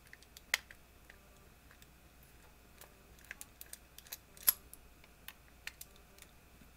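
Faint, irregular small clicks and ticks of a jeweler's screwdriver and tiny screws being worked out of a Flip Ultra camera's case, with a sharper click about half a second in and the loudest one about four and a half seconds in.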